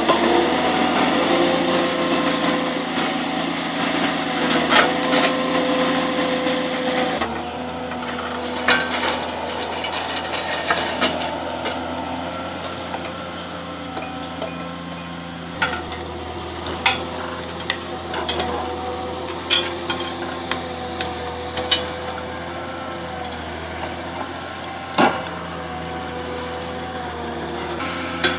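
Valmet harvester's engine and hydraulics running steadily, with scattered sharp cracks and knocks of branches and wood as the toothed brush rake on its harvester head rakes and grips slash and stumps.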